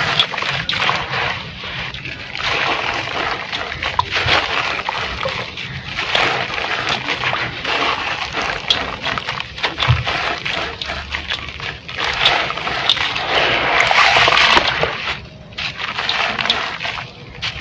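Chunks of red gritty dirt crumbling and breaking apart in water: splashing and sloshing, laced with many small crackles and clicks. It swells loudest about two thirds of the way in, then briefly quietens.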